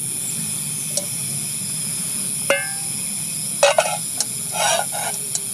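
Metal camp cookware being handled: a sharp ringing clink about two and a half seconds in, then a few quick clatters and rattles, over a steady hiss.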